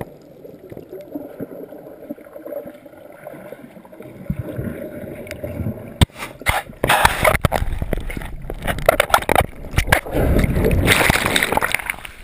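Muffled underwater gurgling of churning surf heard by a submerged waterproof camera, turning about halfway through into loud turbulent whitewater rushing and splashing over the camera as it nears the surface.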